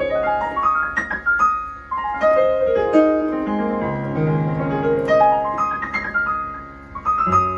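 Yamaha PSR-E473 arranger keyboard played in a piano sound: quick runs of notes up and down the keys, with held notes and chords under them.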